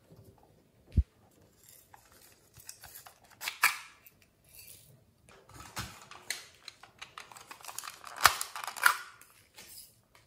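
Small plastic containers being handled and tapped, with scattered clicks and rustles as glitter is shaken onto slime. There is a sharp knock about a second in, and louder clattering near four seconds and again around eight to nine seconds.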